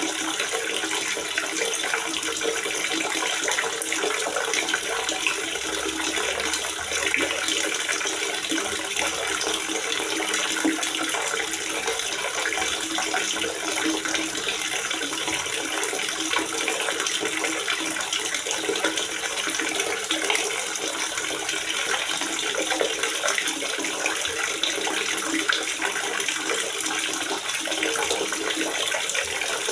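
Water gurgling and splashing steadily as it pours into a water reservoir, a continuous unbroken sound.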